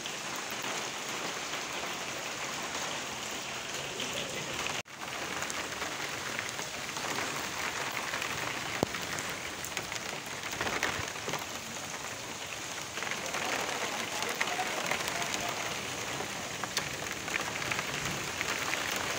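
Steady rain falling, an even hiss with scattered drop taps. It cuts out for an instant about five seconds in.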